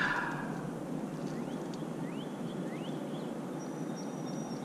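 Quiet outdoor ambience on calm water: a steady faint hiss, a brief rustle at the very start, and a few faint short rising bird chirps in the middle.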